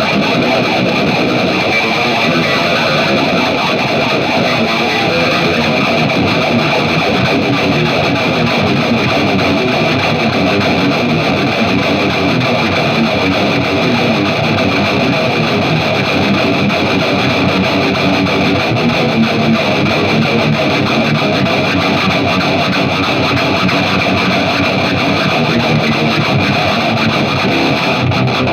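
Distorted electric guitar playing riffs continuously.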